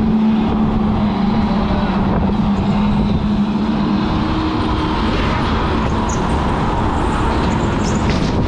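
Electric go-kart running on the track: a steady motor whine that fades out about halfway through, over a constant rushing rumble.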